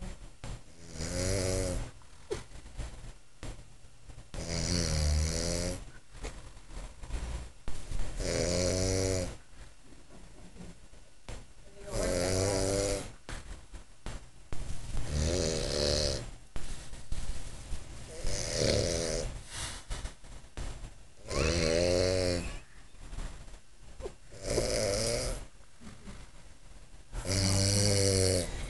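A man snoring in his sleep: nine rhythmic snores, about one every three seconds, each lasting about a second.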